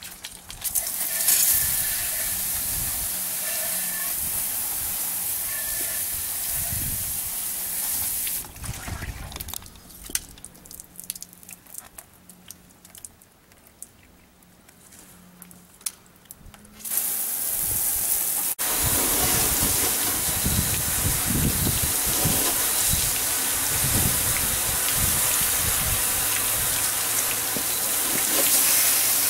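Water spraying from a garden-hose-fed PVC under-washer, a steady hiss. It stops about a third of the way in, leaving a quieter stretch with scattered clicks, then starts again, louder, for the rest.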